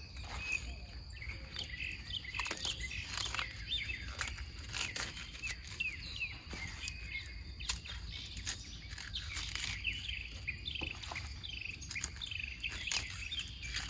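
Small birds chirping again and again over a steady high insect hum. Scattered crisp snaps and tears of mustard green leaves being stripped from their stems.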